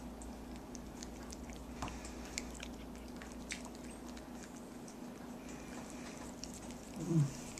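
A Maine Coon cat licking and chewing flakes of tilapia off a wooden tabletop: scattered small wet clicks of tongue and teeth over a low steady hum. Near the end comes a brief falling voice-like sound, the loudest moment.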